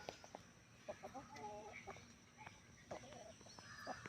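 Faint chicken clucking: a few short calls about a second in and again near the end, with scattered sharp clicks.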